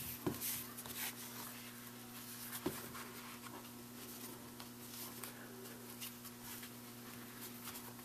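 Faint handling sounds of a leather piece being folded and pressed flat on a work table, with a couple of light knocks, over a steady low electrical hum.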